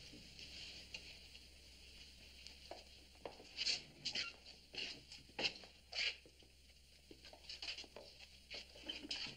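Footsteps on a hard floor with rustling, coming as irregular soft steps with a few sharper clicks between about three and a half and six seconds in.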